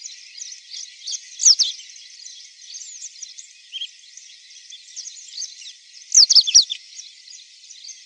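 A chorus of small birds chirping and twittering, high-pitched, with loud bursts of quick falling notes about a second and a half in and again about six seconds in.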